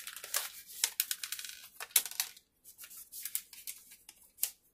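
Plastic packet of a diamond painting tool kit being opened and emptied by hand: irregular crinkling and clicking, busiest in the first couple of seconds and sparser after.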